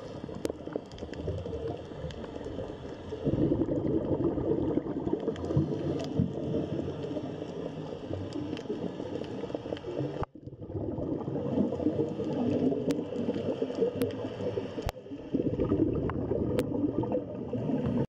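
Underwater ambience: a steady bubbling, gurgling water noise with scattered faint clicks. It drops out for an instant about ten seconds in and changes abruptly at about fifteen seconds.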